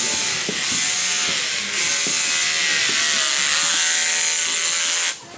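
Electric hair clippers buzzing steadily as a haircut goes on, their hum sagging slightly in pitch midway, then cutting off abruptly near the end.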